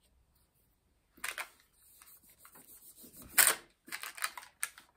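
Translucent paper wrapped around a wax pillar candle crinkling and rustling as hands press and roll it, with short sharp clicks, starting about a second in. One louder crackle comes about three and a half seconds in.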